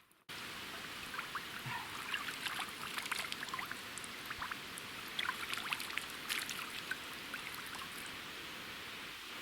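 Running water trickling and babbling, with a steady hiss and many small irregular plinks and splashes that thin out near the end.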